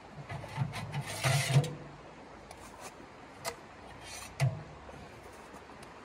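A portable sheet-metal wood stove being handled at its open firebox: a scraping rustle about a second in, low thumps, then several sharp knocks and clinks.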